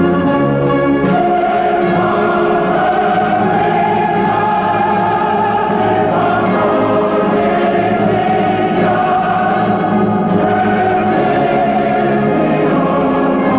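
Slow orchestral music with a choir singing long held chords that shift every few seconds.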